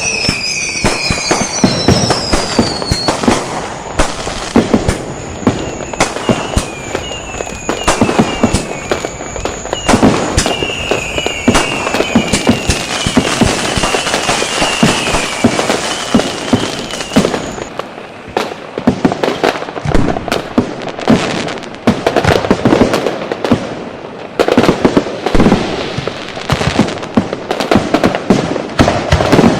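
A dense, continuous barrage of firecracker bangs. Through the first half, repeated short falling whistles sound over the bangs, along with a steady high whine. The whistles and the whine stop at about 17 seconds, and the bangs go on alone.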